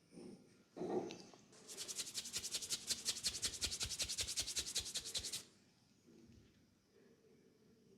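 Brisk rhythmic rubbing by hands, about eight strokes a second for nearly four seconds, after a short soft bump about a second in.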